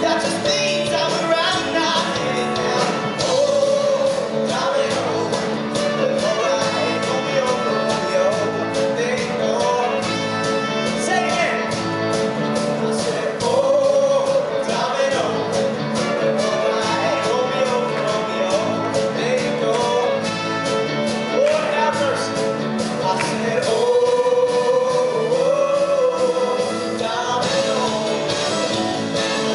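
Live rock-and-roll band playing an upbeat song on electric guitars, drum kit, keyboards and horns, with a male lead singer and a backing choir of singers.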